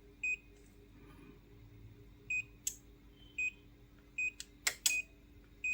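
Short high electronic beeps from a Daikin inverter AC's indoor control board, about six single beeps a second or so apart, answering each press of the remote while it steps through error codes. Single short beeps mean the code shown is not the fault; a long beep would mark it. A few sharp clicks fall between the beeps.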